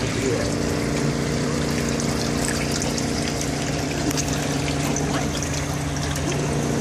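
Muddy pond water pouring from a steel pipe into the chambers of a portable steel sediment tank, over the steady hum of the pump feeding it.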